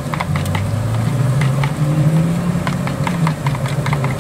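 A spoon clicking and scraping against a plastic container as a thick sour cream sauce is stirred, in irregular clusters of taps. Under it runs a steady low engine drone that rises in pitch about halfway through.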